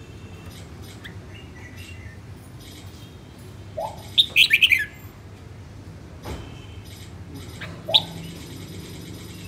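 Red-whiskered bulbul singing a short burst of quick, high chirping notes about four seconds in, then giving one more brief call near the end.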